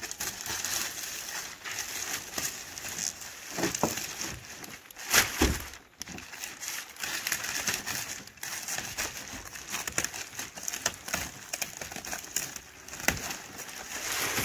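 Clear plastic shipping wrap crinkling and rustling as it is pulled, bunched and peeled off a kayak, in quick irregular crackles, with one louder rustle about five seconds in.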